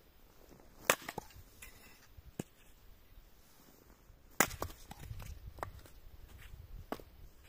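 A hatchet chopping firewood on a chopping block: two sharp chops about three and a half seconds apart, with lighter knocks of wood between and after.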